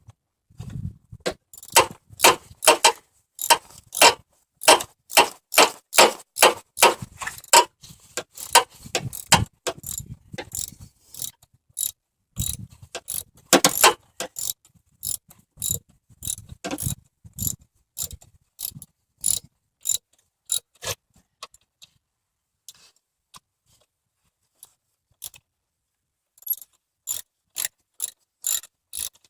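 Socket ratchet wrench clicking in quick, even strokes, about three clicks a second, stopping for a few seconds about two-thirds through and starting again near the end.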